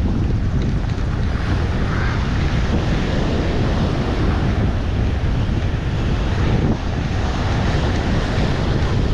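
Strong wind buffeting the microphone, a steady low rumble, over the wash of surf on the beach.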